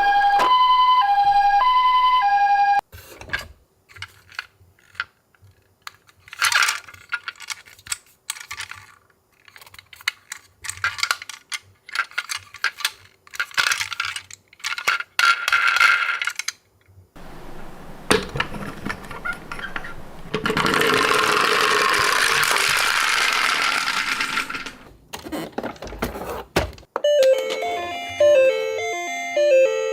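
Toy ambulance's two-tone alternating siren that cuts off about three seconds in, followed by irregular clicks and rattles of miniature toy cars, a few seconds of steady rushing noise, and a short electronic melody near the end.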